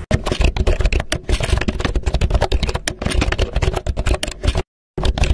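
Rapid keyboard typing clicks, a typing sound effect for text being typed out on screen, with a short break near the end.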